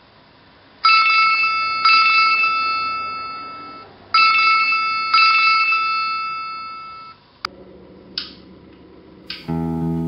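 Mobile phone sounding an electronic ringing tone in two pairs of rings, each ring fading away, cut off by a single click about seven and a half seconds in. A couple of short rustles follow, and guitar music starts near the end.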